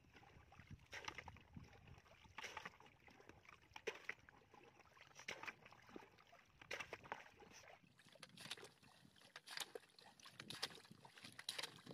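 Plastic bucket scooping and tossing muddy water out of a shallow ditch, faint splashes and sloshes about every second.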